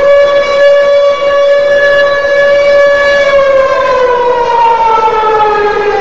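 Chicago Wolves' 2012–15 hockey goal horn sounding one long, loud blast; its pitch holds steady, then slowly sinks over the last few seconds.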